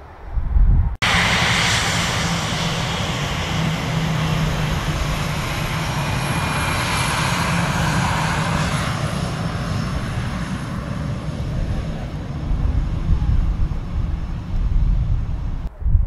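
Aircraft engine noise, loud and steady. A short burst starts it, it cuts off abruptly about a second in, then resumes as a continuous run with a steady low drone until it stops suddenly at the end.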